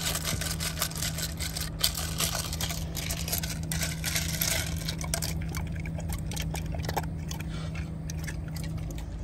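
A dog lapping water from a steel bowl with ice cubes in it: quick wet splashing laps, one after another, over a steady low hum.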